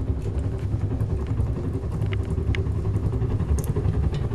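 Stove firebox humming and puffing from a strong draught: a steady, fluttering low rumble. A few sharp ticks fall about two, two and a half and three and a half seconds in.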